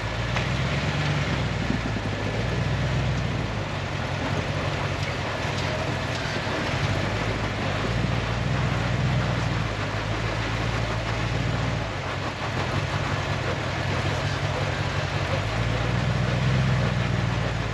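Full-size off-road truck's engine running steadily at low revs, with a few gentle swells in throttle.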